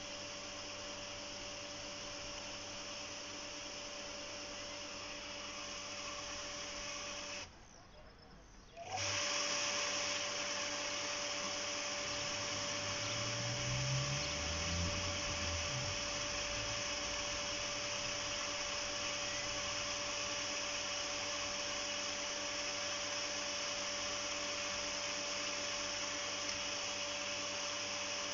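Electric motor of a Toom garden pump (house water automat) running with a steady hum and whine. It cuts out about seven and a half seconds in and starts again about a second and a half later.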